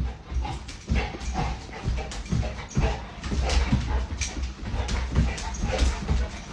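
A dog making a string of short sounds, about two a second, over low thumps.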